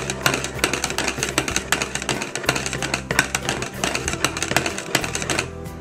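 A metal wire whisk clatters rapidly against the sides of a glass measuring pitcher while stirring potassium hydroxide lye into soapy water to dissolve it. The clicking stops about five seconds in, and a low steady hum runs underneath.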